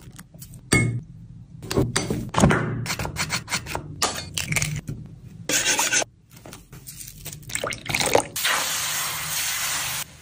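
Short cut-together bursts of a fork beating yellow batter in a wooden bowl. For the last couple of seconds, a steady hiss of the batter sizzling on a hot flat pan.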